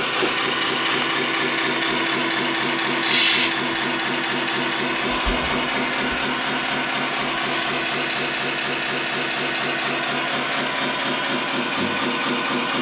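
Scania truck diesel engine idling steadily, with one short hiss of air about three seconds in.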